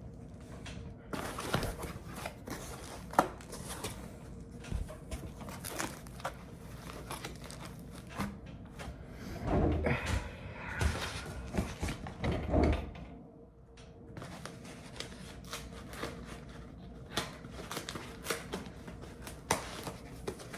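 Packaging being unwrapped by hand: irregular crinkling and rustling with scattered clicks of handling, busiest and loudest about halfway through.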